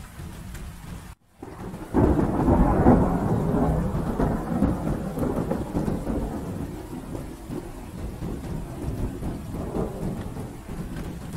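Steady rain with a brief cut-out about a second in, then a loud thunderclap at about two seconds that rolls on as a long rumble, slowly fading under the rain.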